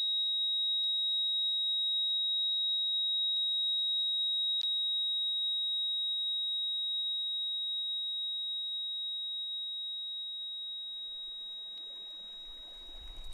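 A steady, high-pitched electronic sine tone, one pure held pitch, with a few faint clicks. It fades away gradually over the last few seconds while a low rushing noise rises near the end.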